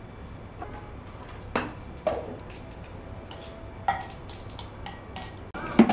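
Chopsticks clinking against a porcelain bowl while sea bass pieces are stirred in a cooking-wine marinade: a few separate sharp clinks, then a quicker run of lighter ticks near the end.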